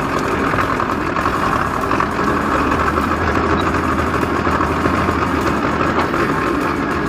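Powertrac tractor's diesel engine running steadily as it drives along a rough dirt track, heard close from the driver's seat; its low drone grows a little stronger about three seconds in.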